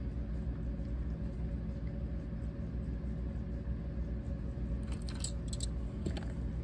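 Steady low hum and rumble, with a few small plastic clicks about five seconds in as a toy diecast car is picked up off a rotating display turntable.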